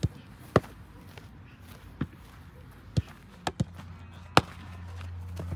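Footballs being kicked and caught in a goalkeeper drill: about seven sharp thuds at irregular intervals. A low steady hum comes in a little past halfway.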